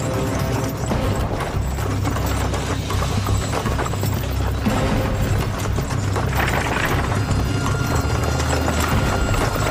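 Hooves of a pair of ponies clip-clopping fast as they pull a scurry carriage.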